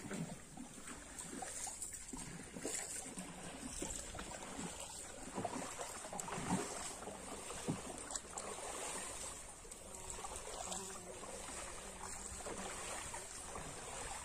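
Water swishing along the hull of a moving wooden canoe, with a few knocks against the boat around the middle.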